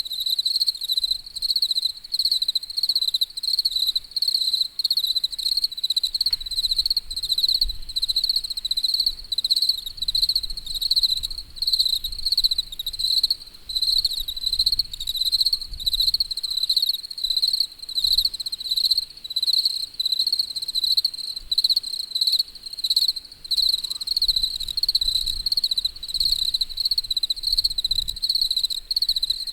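Crickets chirping in a steady, rapid, even pulse on one high pitch.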